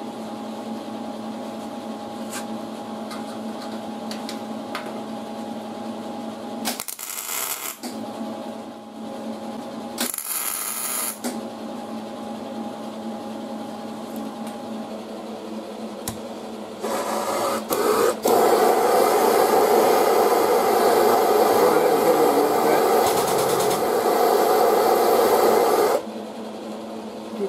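MIG welder welding a small metal tab onto a pickup's creased bedside as a pull point for the frame machine. It makes two short bursts about 7 and 10 seconds in, then a long continuous weld from about 17 seconds that stops abruptly near the end, over a steady hum.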